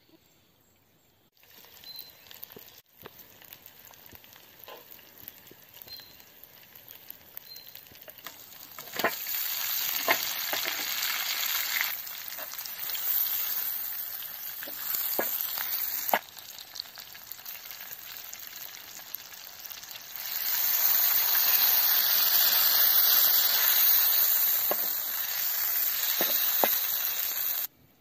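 Whole stuffed duck frying in a granite-coated pan, its juices and fat sizzling with a steady hiss and a few sharp clicks, while a wooden spoon stirs and bastes. The sizzle starts just over a second in, grows louder about twenty seconds in, and cuts off suddenly near the end.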